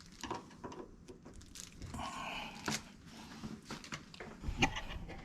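Scattered light clicks and knocks of door-lock hardware being handled, with a short scraping rustle about two seconds in and a sharper knock near the end.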